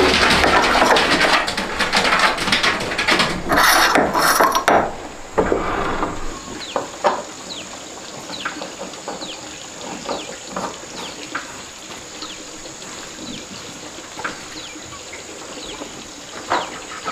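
Stainless steel door knob lockset being handled and turned on a wooden door, with dense metallic rattling and clicking for about the first five seconds. After that, a quieter outdoor background: a steady high insect drone with many scattered short chirps.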